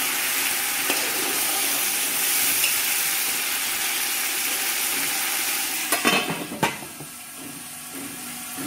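Hot oil and dark-fried onions in an aluminium pot sizzling and hissing loudly as water is poured in. About six seconds in come a couple of metal clanks as the lid goes on, and the sizzle then dies down.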